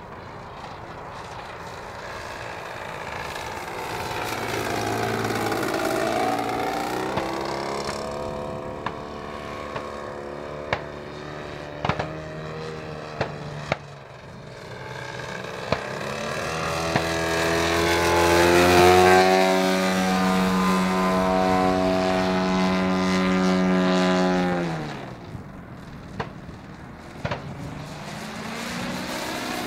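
The large-displacement petrol engine and propeller of a 50% scale clipped-wing Piper Cub RC plane in flight, rising and falling in pitch and loudness as it manoeuvres. It holds a loud steady note for several seconds, then the throttle is pulled back sharply and the engine drops to a much lower, quieter note near the end. A few sharp clicks sound in the middle.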